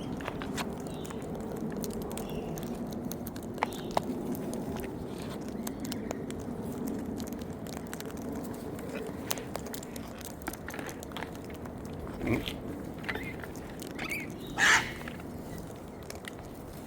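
Wild birds feeding on scattered seed: a steady run of small pecks, clicks and seed crunching. A brief loud bird squawk comes about three-quarters of the way through.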